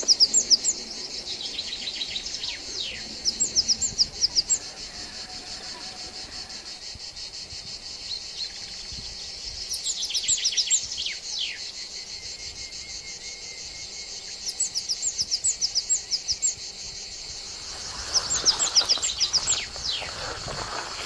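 Steady high-pitched insect drone in sunny woodland, with bursts of rapid, high bird notes and short falling whistles about every four to five seconds.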